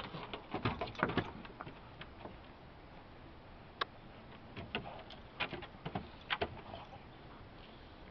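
A dog's claws and paws clicking and knocking on wooden deck boards in scattered bursts, a quick flurry in the first second or so, then a few separate clicks between about four and six and a half seconds in.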